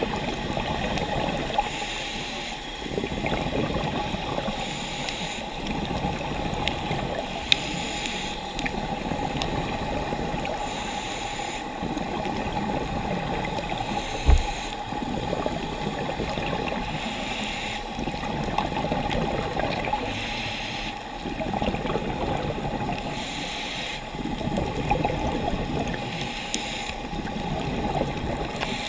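Underwater sound of a scuba diver breathing through a regulator, with hissing and bubbling that return about every three seconds. A short low thud comes about halfway through.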